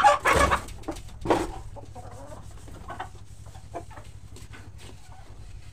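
Chickens clucking, with two loud calls in the first second and a half and softer clucks after, over faint clinks of plastic dishes and basins being washed.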